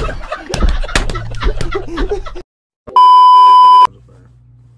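Voices and laughter from an inserted video clip, cut off abruptly about two and a half seconds in. Half a second later a loud, steady, high bleep tone of the censor-beep kind sounds for about a second and stops sharply.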